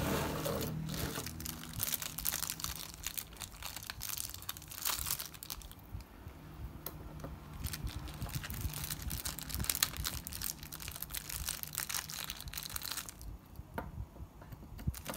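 Small plastic zip-lock bags of enamel pins crinkling and rustling as they are handled and shuffled, in an irregular run of crackles.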